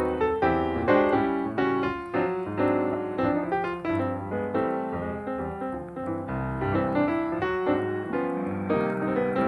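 Background piano music: a melody of quick, evenly played notes over chords.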